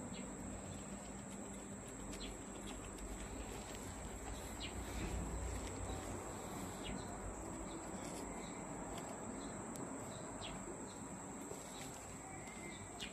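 Outdoor insect chorus: a steady high-pitched trill like crickets or cicadas, with scattered short chirps over it.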